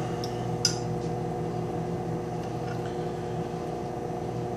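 Microwave oven running with a steady hum, heating a dish of chicken, with a couple of light clinks in the first second.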